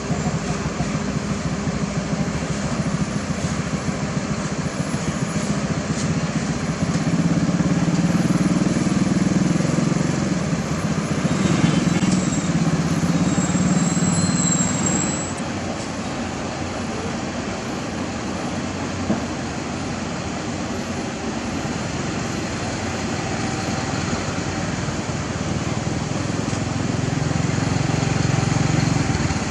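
Engines of heavy road-construction vehicles running steadily, with the low rumble growing louder about a quarter of the way in, easing off about halfway, and swelling again near the end.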